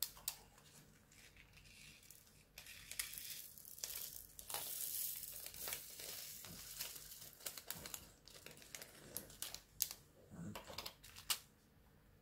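Small plastic bags of diamond-painting drills crinkling and rustling as they are handled, with scattered sharp clicks and crackles.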